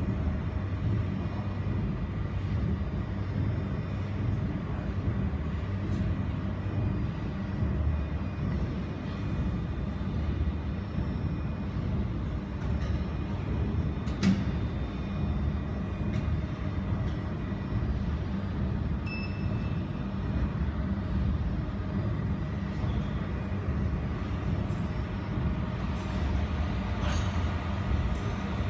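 Steady low machine hum of a jewelry laser welder and its water chiller running, with one sharp click about fourteen seconds in.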